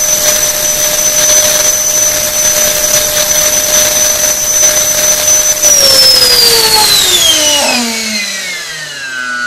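Lander CS10 70 mm ten-blade alloy electric ducted fan, driven by a 2960 2200kv brushless motor on 6S, running at full throttle with a steady high-pitched whine. About six seconds in it spools down, its pitch falling smoothly as the throttle is cut.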